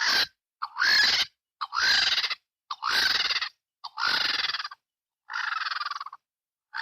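An animal calling over and over, about once a second: a string of six or seven short, harsh, pitched calls, several opening with a brief upward sweep.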